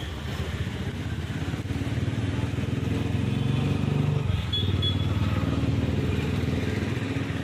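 Road traffic led by a small motor vehicle's engine passing close by. The engine hum swells toward the middle and eases off near the end.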